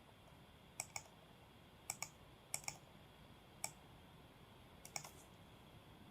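Sparse, irregular clicks of a computer keyboard over near silence: about a dozen short, sharp key clicks, several in quick pairs, stopping about five seconds in.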